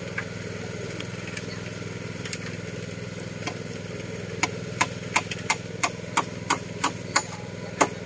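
A steady low engine hum. From about halfway there is a quick run of sharp knocks, about three a second, like repeated striking or hammering.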